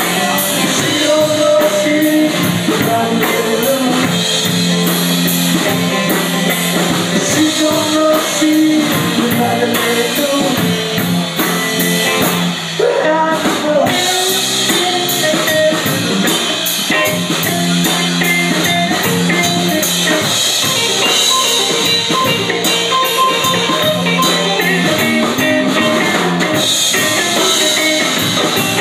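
Rock band playing a song, with a drum kit keeping a steady beat under guitars.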